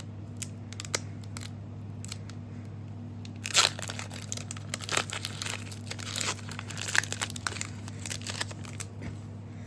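A trading card booster pack's foil wrapper being torn open and crinkled, with the cards being handled. The crackling comes in uneven bursts, loudest about three and a half seconds in, over a steady low hum.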